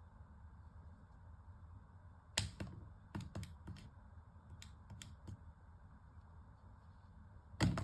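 A cat's paw strikes tapping against a hair dryer: quick clicks and taps in several short flurries, the loudest starting near the end.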